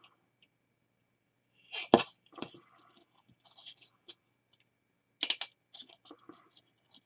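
Hands working a glittered plastic Christmas ball ornament, threading a thin red stem through its cap: light rustles and clicks, with two short sharp noises, the loudest about two seconds in and another a little after five seconds.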